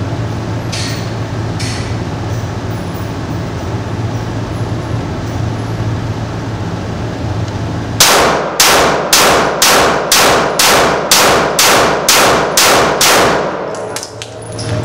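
Handgun fired in a rapid string of about fourteen shots, a 'mad dump', at roughly two and a half shots a second. The shots start about eight seconds in, each echoing off the indoor range booth, over a steady low hum.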